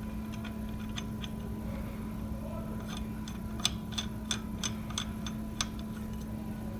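Sharp metal clicks, a few scattered and then a quick run of about three a second lasting a couple of seconds, as the impeller nut is fitted onto the centrifugal pump's shaft, over a steady background hum.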